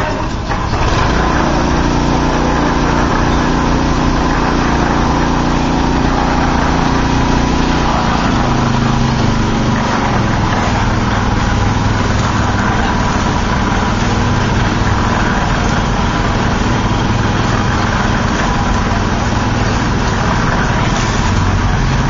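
A small engine running steadily, getting louder about a second in and shifting slightly in pitch around eight seconds in.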